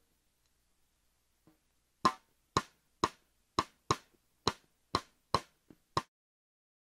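Snare drum played cross-stick through a close Shure SM57: about ten dry rim clicks, roughly two a second, starting about two seconds in and stopping just after six seconds.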